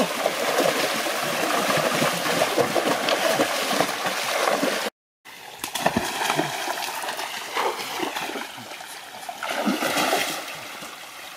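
Water splashing hard as a person thrashes and wades through a shallow stream, over the steady rush of the stream. The sound cuts out for a moment about halfway; after that the splashing is quieter, swelling again shortly before the end.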